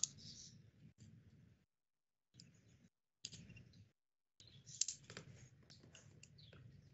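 Near silence over an online call: faint background noise that cuts in and out between gaps of dead silence, with a few soft clicks about halfway through.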